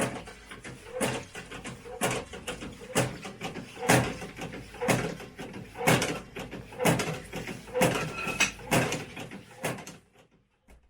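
Churchill hydragas service pump worked by hand to evacuate a Hydragas displacer: about ten even pump strokes, roughly one a second, stopping near the end.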